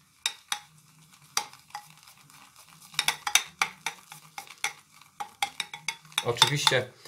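Shaving brush swirling and whipping soap into lather in a lathering bowl: irregular wet swishing and clicking of the bristles and handle against the bowl, while the lather is still thin after half a teaspoon of water.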